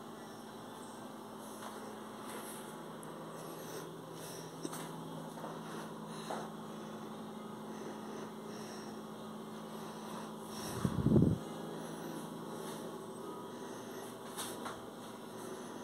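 Steady low electrical hum with a few light clicks. A single loud, low thump comes about eleven seconds in, and the hum fades away after it.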